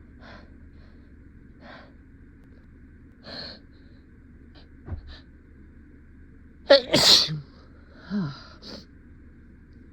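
A person's induced sneeze: a few faint hitching breaths as it builds, then one loud sneeze about seven seconds in, followed by a couple of short voiced after-sounds.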